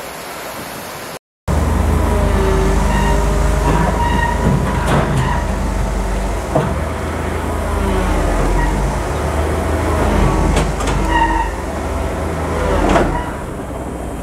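Komatsu PC1250 excavator's diesel engine running with a steady low drone while its steel tracks squeal and clank as it crawls up onto a lowbed trailer. The crew says the machine has run out of diesel and keeps dying.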